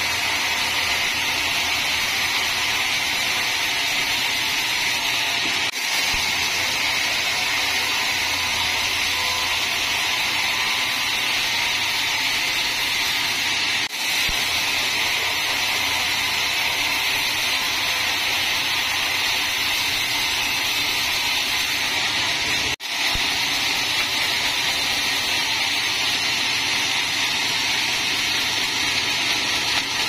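Sawmill band saw running and cutting through a teak log: a loud, steady, high-pitched sawing noise that breaks off briefly three times.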